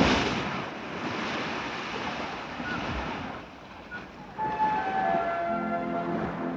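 Cartoon sound effect of splashing, rushing water, loudest at the start and fading out about four seconds in. Soft background music with a simple melody takes over from there.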